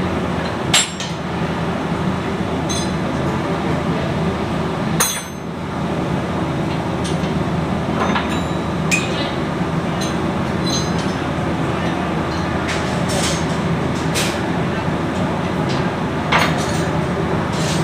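Metal tools and turbocharger parts clinking now and then, about six sharp clinks, over a steady, loud machinery drone.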